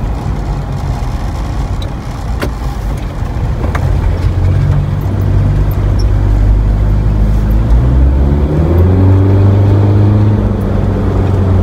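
Mitsubishi Pajero's 2.8-litre 4M40 turbo diesel heard from inside the cab while driving, with a couple of sharp clicks a few seconds in. About eight seconds in, its note climbs as it accelerates, then holds steady and strong.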